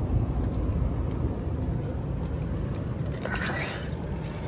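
A low steady rumble, then about three seconds in a brief splash and swish of water as a hand reaches into a shallow rock pool and stirs through loose shells.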